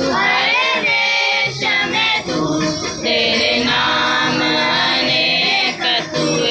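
Music with a group singing.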